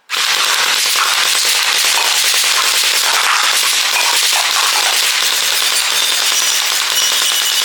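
A loud, dense, continuous crackle of rapid pops at an even level.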